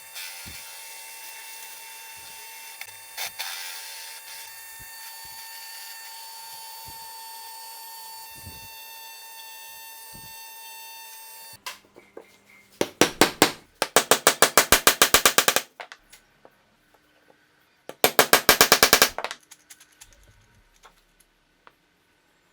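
A power tool runs steadily with a high whine for about eleven seconds, then stops. Later come two bursts of rapid, even mechanical strokes, roughly eight a second: the first about three seconds long, the second about a second.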